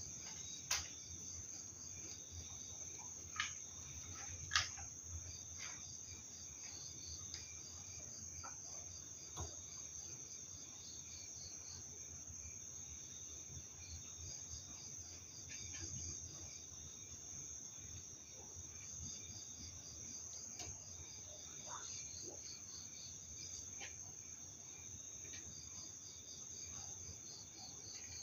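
Crickets and other night insects chirping steadily: a continuous high hum with a rhythmic pulsing trill just below it. A few faint short clicks come in the first five seconds.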